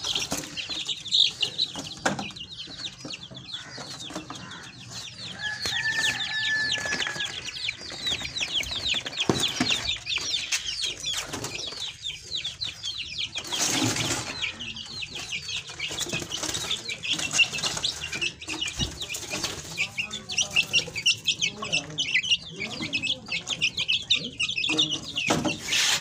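A group of young chicks peeping continuously, many rapid, short, high falling calls, with wings flapping as they are handled and put into a cage.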